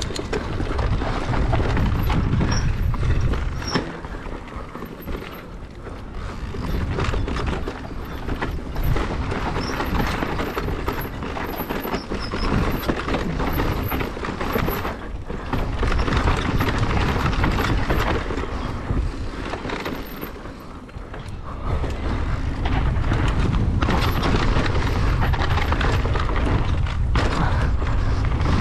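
Mountain bike ridden fast down a rough dirt trail: wind buffets the microphone in a deep rumble, with tyre noise and the bike rattling and knocking over bumps. The wind rumble eases twice, a few seconds in and again about two-thirds of the way through.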